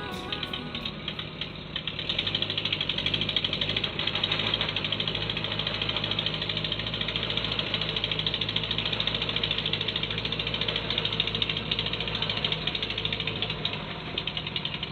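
Engine of mechanical harvesting equipment running steadily with a fast, even rattle.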